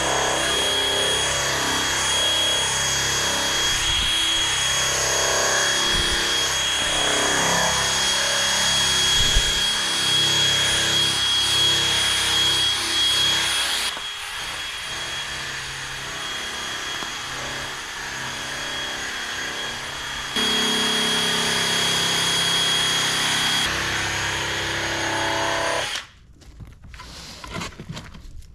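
Battery-powered drill spinning a buffing wheel against a plastic kayak hull: a steady motor whine with the wheel rubbing on the plastic. The sound steps abruptly quieter and louder a few times, then drops away near the end.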